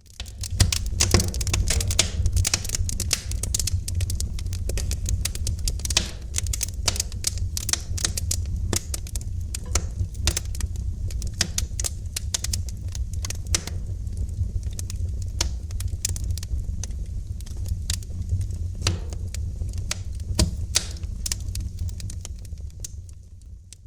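Wood fire crackling in a fireplace: dense, irregular pops and snaps over a steady low rumble. It starts abruptly and fades out near the end.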